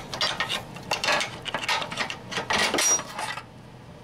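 Irregular metal-on-metal clinking and scraping of hand tools and the loosened bolt against the rear upper control arm's bushing mount as the arm is worked free, dying down near the end.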